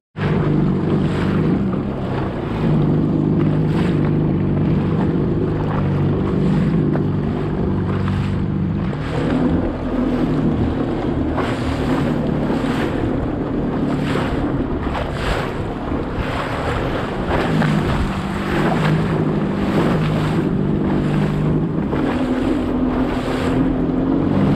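Jet ski running at speed over choppy sea: a steady engine drone whose pitch shifts up and down with the throttle, with water rushing and slapping against the hull and wind buffeting the microphone.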